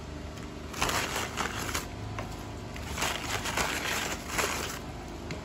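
Paper bag rustling and crinkling in a few bursts as samosas are pulled out of it by hand and set on a plate.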